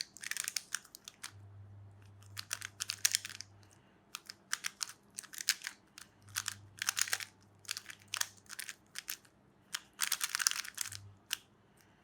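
Rubik's Cube being turned fast during a timed speedsolve: runs of quick plastic clicking and clacking in bursts, with brief pauses between them.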